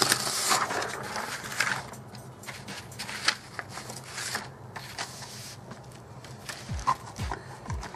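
Rustling and scattered clicks of handling as things are moved about, with a louder rustle over the first two seconds.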